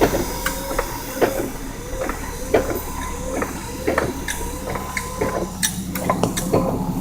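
Cab of a 1987 Jeep Wrangler YJ on the move: a low engine drone under a quick, somewhat uneven clicking or rattling, about two to three clicks a second, each with a short ringing note.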